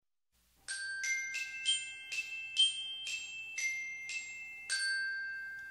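Short intro jingle of about ten bright, bell-like struck notes in a quick run, each ringing on. The last note is held and slowly fades out.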